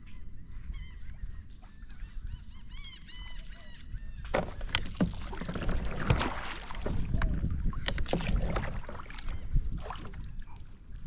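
A bird calls in a quick series of short notes that rise and fall for the first few seconds. Then water splashes and sloshes again and again as a hooked snapper thrashes at the surface beside the kayak, with rod or kayak knocks among the splashes.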